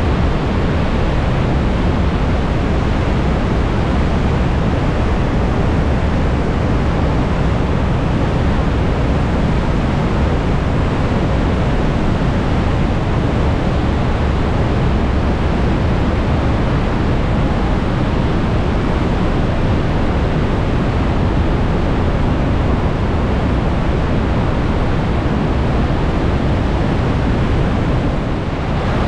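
Trümmelbach Falls, a glacial meltwater waterfall pouring through a gorge inside the mountain: a loud, steady rush of falling water with a deep rumble, dipping briefly near the end.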